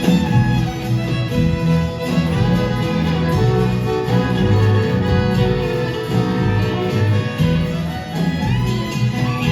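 Live band playing an instrumental passage of the song: a violin line over strummed guitars and a steady bass.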